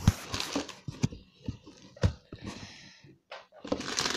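Handling of a toy bus keychain's packaging: a clear plastic bag crinkling and rustling, with a few light knocks.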